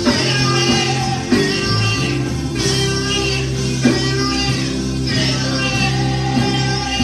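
Live gospel worship music: singers over a band, with held bass notes and a few sharp beats.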